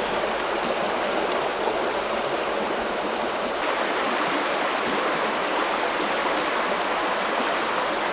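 River water flowing: a steady rush of moving water.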